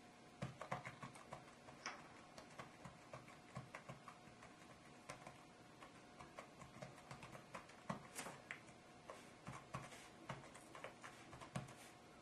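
Faint, irregular taps of typing on a flexible rubber roll-up USB keyboard, the keys pressed at an uneven, halting pace.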